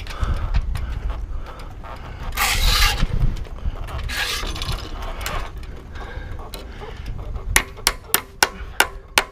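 Wind buffeting the microphone with two louder rushes, then, about three-quarters of the way through, a ratchet starts clicking steadily, about three sharp clicks a second.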